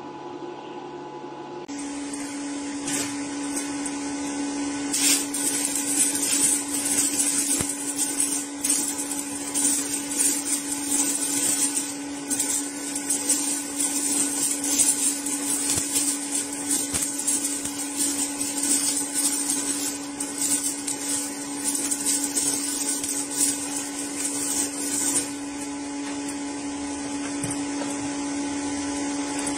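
Stick welding on thin galvanized 18-gauge steel with a 1/8" 6013 electrode: the arc crackles and sputters irregularly, starting about two seconds in and easing off a few seconds before the end, over a steady hum.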